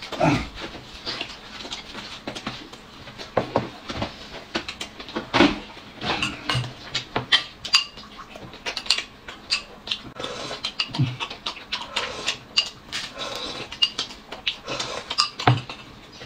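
Close-up eating sounds: loud chewing and lip-smacking on a flatbread, in irregular smacks and crunches, with occasional clinks of chopsticks and dishes.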